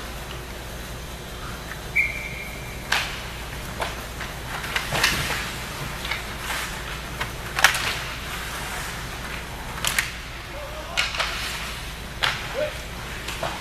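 Ice hockey play on the rink: one short steady whistle blast about two seconds in, then repeated sharp scrapes and knocks of skates, sticks and puck on the ice and boards.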